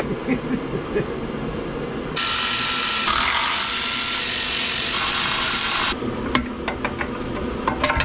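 A power tool running steadily for about four seconds, starting about two seconds in and stopping abruptly, followed by a few light clicks.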